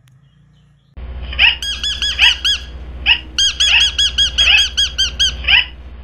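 Ring-necked parakeet calling, starting about a second in: a rising call repeated about once a second, mixed with quick runs of clear, arched chirping notes about six a second, over a steady low hum.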